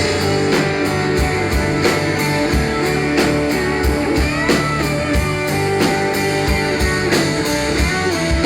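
A live country-rock band playing an instrumental break: guitars over a steady drum beat, with no singing.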